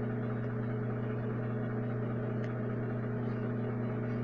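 Microwave oven running: a steady, even hum.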